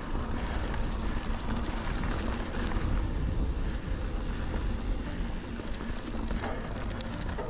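Mountain bike rolling along a dirt trail: a steady rumble of wind on the mic and tyre noise, with a steady high-pitched whine from about a second in until about six seconds in.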